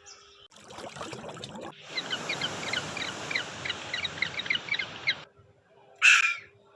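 Rapid, repeated short bird chirps over a steady rushing hiss for about three seconds, then a moment's quiet and one loud bird call about six seconds in.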